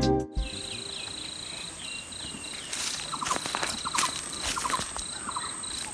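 Insects calling: a high trill that pulses on and off, over a steadier, higher continuous whine, with a few short clicking chirps. Brief rustles come a few times near the middle.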